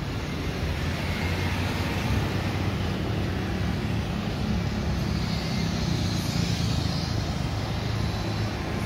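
Steady traffic noise from cars, motorcycles and a bus running on the street, mixed with the low diesel drone of the Batara Kresna railbus rolling slowly along the roadside track.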